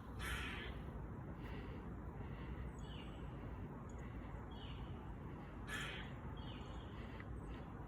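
A squirrel giving short, harsh, rasping alarm calls at irregular intervals. Two calls, about a third of a second in and near six seconds in, are louder than the rest.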